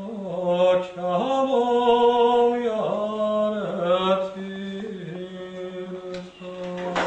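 Several male voices singing a chant-like song in harmony over a steady held low drone, in the manner of Georgian polyphonic singing. A short click comes near the end.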